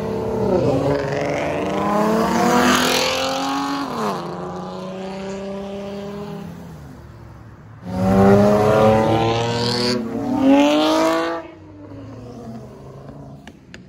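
Cars accelerating hard past, engines revving up through the gears. Each engine note climbs and dips at a gear change. The first car fades away over several seconds, and a second loud car revs past about eight seconds in. Its sound drops off suddenly a few seconds later.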